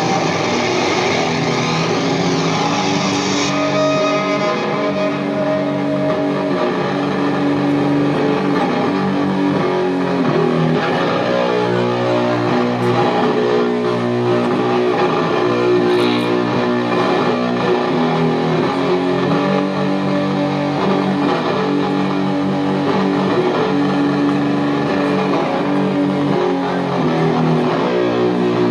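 Heavily distorted electric guitars played live at loud volume, holding long sustained chords in slow doom-metal fashion. A bright hiss on top dies away about three seconds in.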